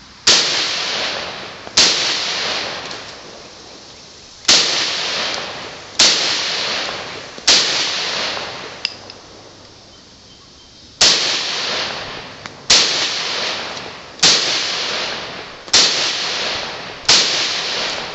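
Russian SKS semi-automatic rifle in 7.62x39mm firing ten shots. Each shot is a sharp crack followed by an echo that dies away over about a second. They come as two shots, a pause, three more, a longer pause, then five in steady succession, emptying its ten-round magazine.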